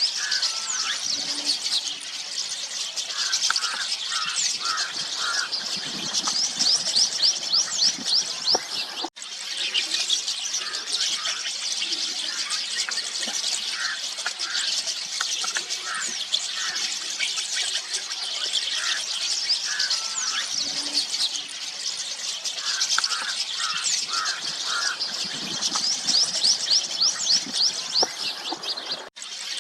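A flock of rosy starlings chattering: a dense, continuous mix of many overlapping short, high, squeaky chirps and whistles.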